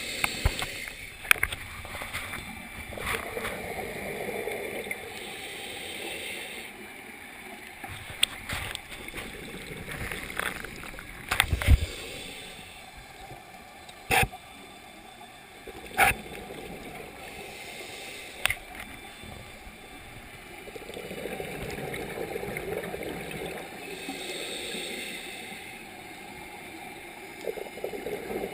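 Underwater sound of a scuba dive, heard through a camera housing: the bubbling and gurgling of exhaled air from a diver's regulator swells and fades. Several sharp clicks and knocks cut through, the loudest cluster about halfway in.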